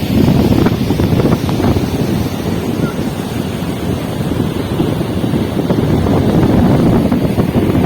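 Wind buffeting the microphone over the steady wash of sea surf, a loud, continuous rumble.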